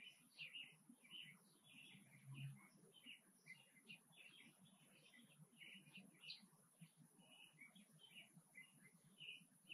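Small birds chirping in quick, short notes, overlapping and continuous, faint. A soft low thump about two and a half seconds in.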